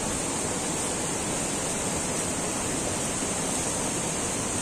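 Steady rushing of flowing stream water, an even unbroken hiss with a steady high-pitched hiss layered over it.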